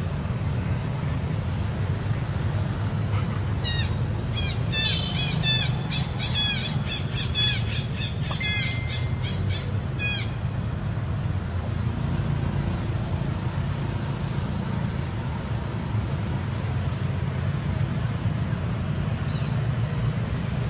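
A young monkey giving a rapid series of high-pitched squealing screams, about three a second for some six seconds, then stopping abruptly. A steady low rumble runs underneath.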